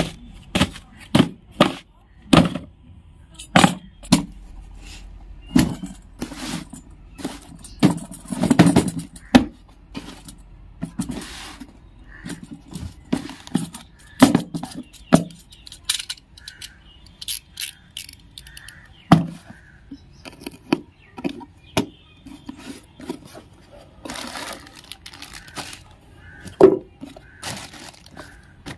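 Cardboard boxes being handled and set down on a plastic tarp: irregular knocks and taps, with a couple of longer stretches of rustling.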